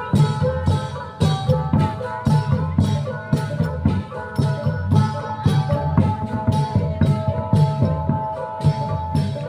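Procession folk music: drums keeping a steady beat of about three strikes a second, with rattling small percussion over held melody notes.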